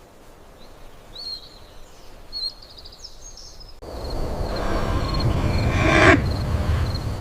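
Night outdoor ambience: faint high bird chirps, then a sudden loud rushing noise with a low rumble that swells and cuts off abruptly near the end, over a regular cricket-like chirping.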